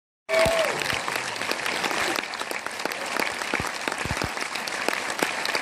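Audience applauding, a dense patter of hand claps with a few close claps standing out.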